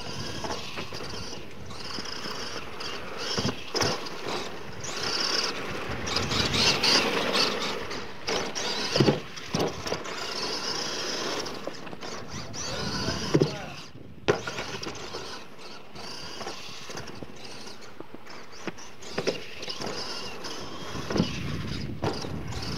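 Radio-controlled scale monster truck running on a dirt track: its motor whines, rising and falling as it speeds up and slides, with tyres scrabbling in loose dirt. Several sharp knocks are spread through it.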